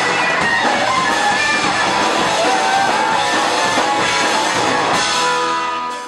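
Punk rock band playing loud and live: distorted electric guitars over a driving drum kit. Near the end the drumming stops and a held guitar chord rings as the sound starts to fade.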